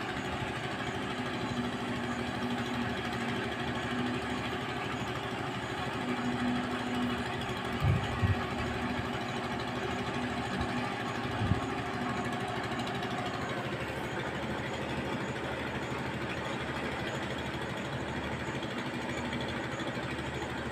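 Concrete mixer's engine running steadily with a fast, even beat, with a few dull thumps about eight and eleven seconds in.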